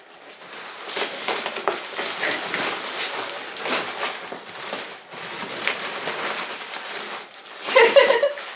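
Packaging rustling and crinkling as gift items are unwrapped and handled, in many short irregular bursts, with a short voiced sound near the end.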